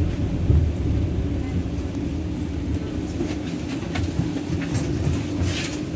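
Interior of a 71-623-02 low-floor tram standing at a stop with its doors open: a steady low rumble and hum from the car's equipment, with a few brief higher sounds near the end.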